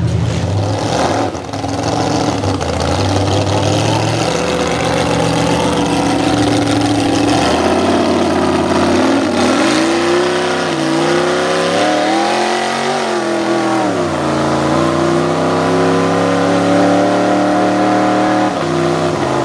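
Chevy mud truck engines running at high revs while driving through a mud pit. In the second half the pitch climbs and falls again and again as the throttle is worked.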